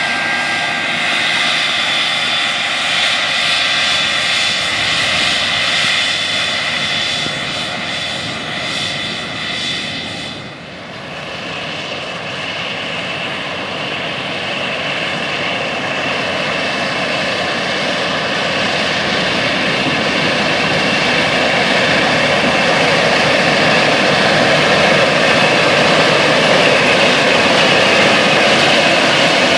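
Big tractors pulling 60-foot Horsch Panther air drills through the field: heavy diesel engines working under load, with a high steady whine on top. About a third of the way in the sound dips briefly and changes, then grows steadily louder toward the end as the machines come nearer.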